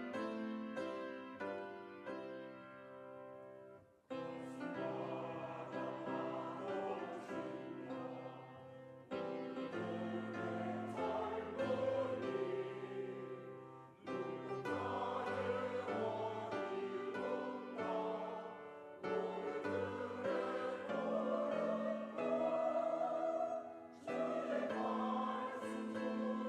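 Church choir singing an anthem with piano accompaniment. The piano plays alone at first, and the choir comes in about four seconds in, singing in long phrases.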